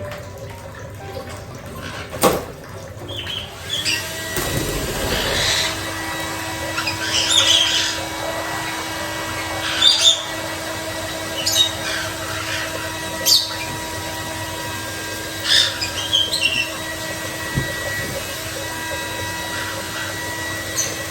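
A hair dryer runs steadily while a white-bellied caique gives short, loud squawks every couple of seconds.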